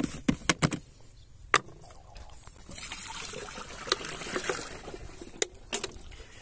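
Clicks from the plastic screw lid of an electric backpack sprayer tank as it is turned, then water pouring into the tank for about two seconds, followed by two more sharp clicks.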